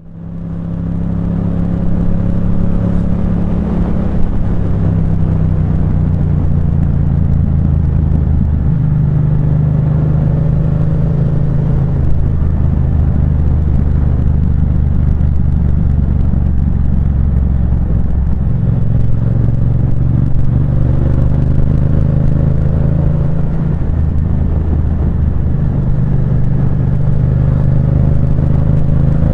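Yamaha MT-07's 689 cc parallel-twin engine running through a Firetong aftermarket sport exhaust, its steady note shifting up and down between a few levels every few seconds.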